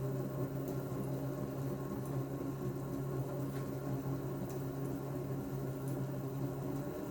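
Sieg C2-400 mini lathe running, its 0.37 kW three-phase motor on a VFD driving the spindle through an M5 belt: a steady hum of even tones at one speed, stepping up in pitch at the very end.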